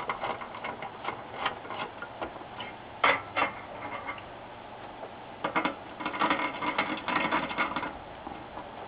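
Hand screwdriver driving screws to fasten a monitor's power supply board into its sheet-metal chassis: scattered light metallic clicks and ticks, two sharper clicks about three seconds in, and a denser run of ticking for a couple of seconds near the end.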